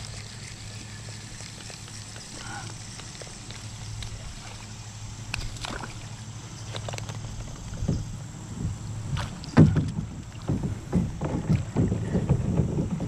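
A small hooked fish splashing at the surface while it is reeled in on a spinning rod from a kayak. About eight seconds in, a run of irregular knocks and splashes starts and grows louder, the loudest about ten seconds in, over a low steady hum.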